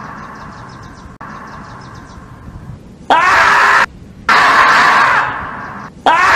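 Kittens crying loudly in high, shrill screams. A short cry about three seconds in is followed by a longer one that fades out, and another starts just before the end.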